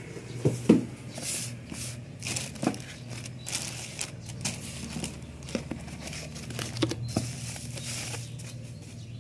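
Clear plastic wrapping crinkling and a small cardboard box being handled and opened, with irregular sharp rustles and taps, over a low steady hum.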